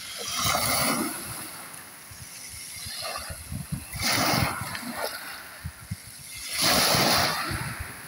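Small sea waves splashing against a stony shore: three louder splashes, about half a second in, at about four seconds and near the end, with softer washing of water between them.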